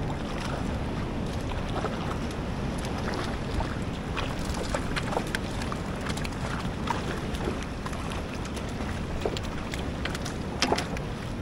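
Wind and choppy water around a fishing kayak at sea, a steady rushing noise with wind buffeting the microphone. Scattered small ticks and taps come through it irregularly, with a brief louder cluster about ten and a half seconds in.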